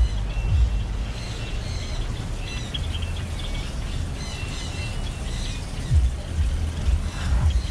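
Many birds in an aviary chirping and calling, short high notes overlapping throughout, over a low rumble with a few thumps on the microphone.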